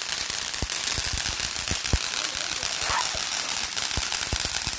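Ground firework fountain spraying sparks: a steady hiss with scattered sharp crackling pops at irregular intervals.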